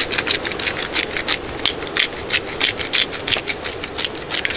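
Pepper grinder being twisted, cracking peppercorns: a rapid, irregular run of dry crackling clicks, several a second.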